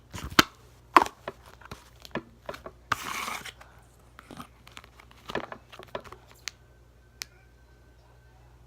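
Yellow putty-type slime being stretched and squished by hand, giving a run of small sticky pops and clicks, with a short crackling rasp about three seconds in. The sounds die away after about six and a half seconds.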